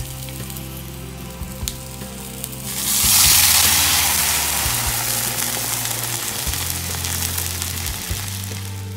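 Water poured into a hot oiled frying pan of browned stuffed baby marrows. It hits the hot oil with a sudden loud sizzle about three seconds in, which slowly dies down, over quieter sizzling of oil before the pour.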